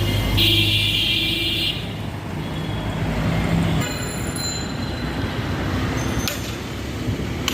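Steady road and vehicle noise while travelling along a city street, with a high-pitched squeal lasting about a second near the start.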